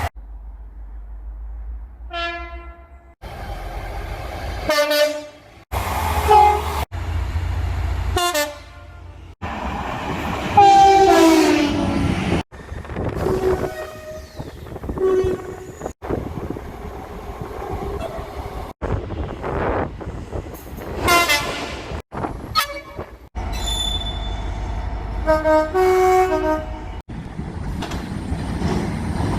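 A rapid series of short clips of train horns sounding, most with two tones, cut abruptly one after another. Some horns fall in pitch as the train passes, over a low rumble of the passing trains.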